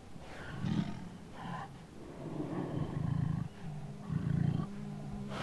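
A tiger giving several low, grumbling calls, the loudest about three seconds in and again a second later.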